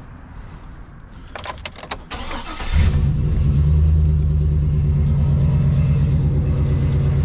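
Chevy Silverado pickup engine starting: a few clicks, a short crank, and the engine catches about three seconds in, then idles steadily.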